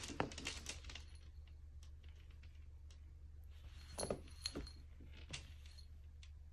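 Small metal tag on a cat's collar jingling in short clinking bursts as the cat rolls and squirms on its back, at the start and again around four seconds in. A low steady hum runs underneath.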